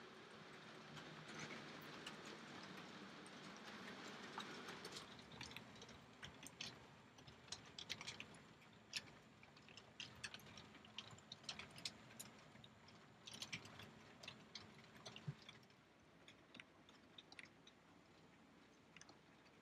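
Faint running noise of an OO gauge model train: a steady low hum from the model Class 33 diesel's motor and rolling wheels, then a run of irregular light clicks as the locomotive and wagons roll over rail joints and pointwork, thinning out near the end.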